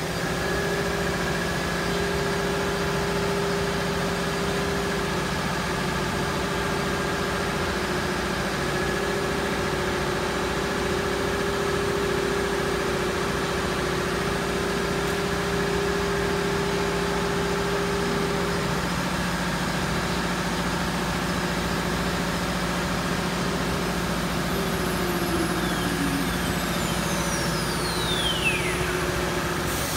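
Cimtech CNC woodworking router running a job on a wooden sheet: a steady machine hum with several held tones, one of which drops out and returns. Near the end a high whine falls steeply in pitch.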